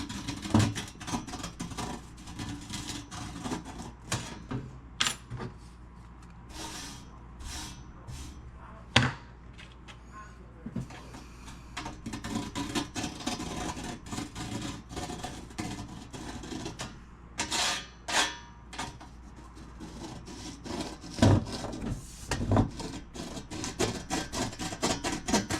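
A razor blade scraping rust off a metal part in short, irregular strokes, flaking off large chunks.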